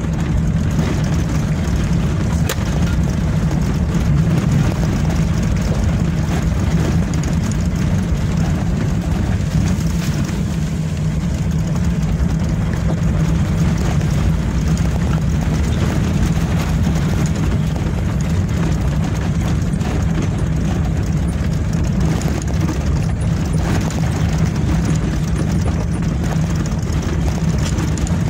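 A vehicle engine running at a steady pitch while driving, with rumbling road noise and a few faint knocks from the rough road.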